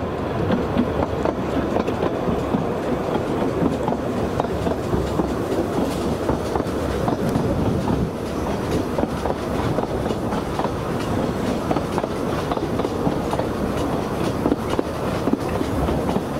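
Narrow-gauge railway train running along the track: a steady rumble and rattle broken by frequent short clicks of the wheels over the rail joints.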